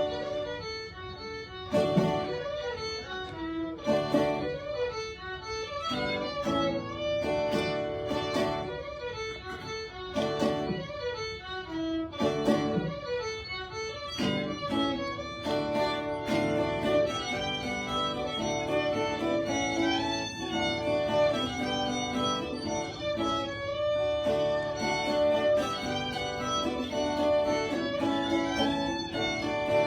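Live fiddle and guitar playing an instrumental folk passage with no singing. At first the guitar strikes chords about every two seconds under the fiddle; after about fifteen seconds the playing turns fuller and busier.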